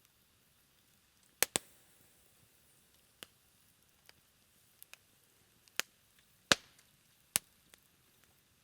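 Low campfire, nearly down to embers, crackling: a few sharp pops scattered through, a quick double pop about a second and a half in and the strongest pops in the second half.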